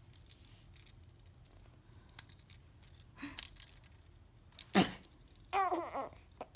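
Faint clicks and rattles, then a person sneezes once about three-quarters of the way in, and a baby answers with a short burst of laughter near the end.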